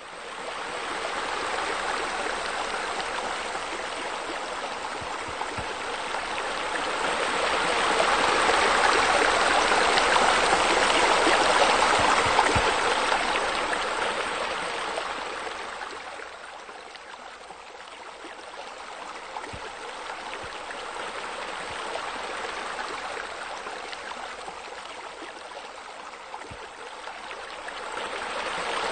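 Steady rush of running water that grows louder a few seconds in, drops quieter around the middle and rises again near the end.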